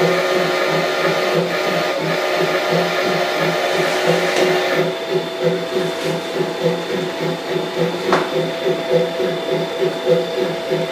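On30 model train running along the track: a steady electric motor whine with a low pulsing about two or three times a second. A higher set of tones drops out about five seconds in, and there is a single click about eight seconds in.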